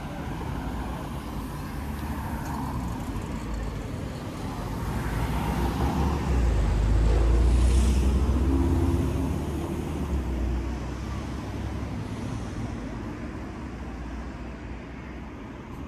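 Road traffic going by, with one vehicle passing close in the middle: its low-pitched sound swells to a peak for a few seconds and then fades.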